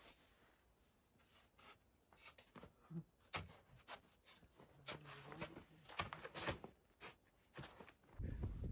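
Faint rustling and rubbing with scattered light clicks and knocks, as of things being handled at close range; a louder steady rushing noise comes in just before the end.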